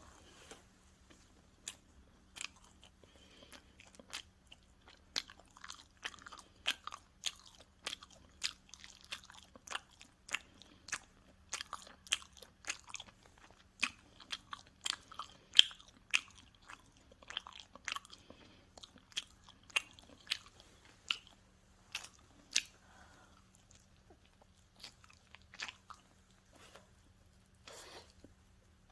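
Close-miked chewing and biting of pizza: many sharp, irregular crunches of crisp crust, with a short lull a little past two-thirds of the way through.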